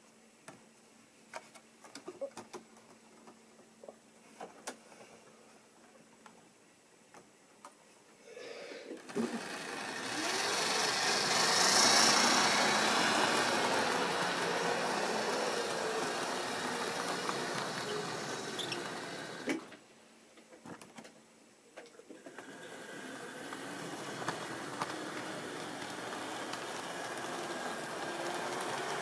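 OO-gauge model train running past on sectional track: the electric motor whines with a wavering pitch over the rumble of wheels on the rails. It starts about nine seconds in, is loudest around twelve seconds and fades out near twenty seconds, then builds again as the train comes back round. Before that there are only faint scattered clicks.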